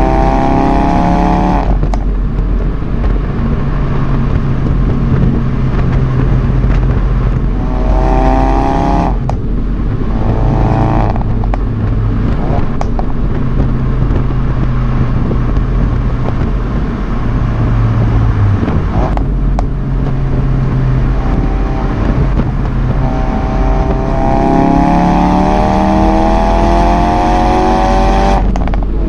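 Ford Focus RS Mk3's 2.3-litre turbocharged four-cylinder engine accelerating hard, its pitch rising and breaking off sharply at gear changes about two seconds in, around nine seconds and near the end. Between the pulls it runs steadier and lower, with a few sharp cracks from the exhaust.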